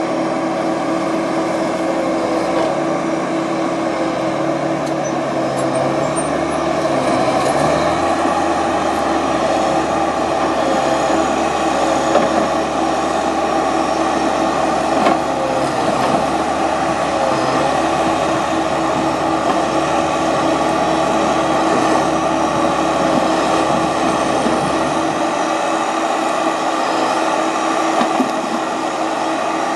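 Timberpro TF840B forwarder's diesel engine running under load with a steady hum and whine while its hydraulic crane works, lifting and loading logs. The pitch of the whine wavers slightly as the crane moves, and a couple of brief knocks come through partway in.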